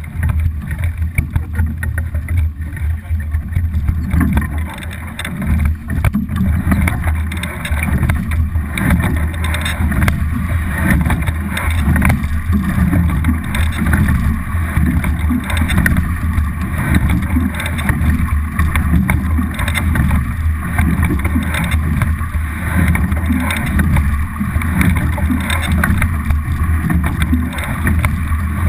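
On-board sound of a racing double scull under way: water rushing along the hull, the oars working in their riggers, and wind buffeting the boat-mounted camera's microphone as a steady low rumble.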